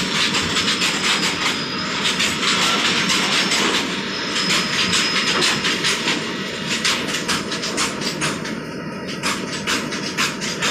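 Goods train of BFNS flat wagons loaded with steel coils rolling past close by: steel wheels clattering over the rail joints in a continuous clickety-clack, with a few brief thin squeals from the wheels.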